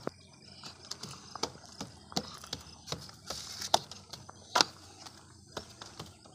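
Plastic toy trucks knocking and clicking against concrete, a scattered run of sharp clicks with two louder knocks just before the middle and again a little after it.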